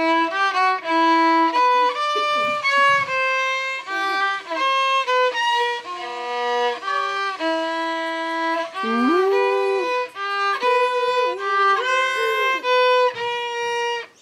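Background music: a melody of held notes, some sliding from one pitch to the next, in a violin-like lead voice, cutting off suddenly at the end.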